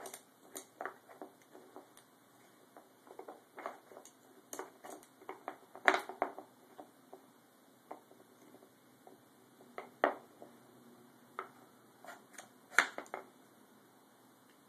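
Wooden pieces of a dog puzzle board (sliding blocks and pegs) clacking and knocking irregularly as a small dog pushes them around with its muzzle, with a few sharper knocks among many light clicks.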